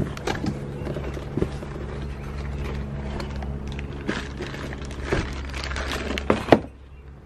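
A plastic-wrapped transmission cooler being pulled out of its cardboard box: the plastic wrap crinkles, cardboard scrapes and a run of light clicks and knocks, with the sharpest knocks about six seconds in. A steady low hum runs underneath.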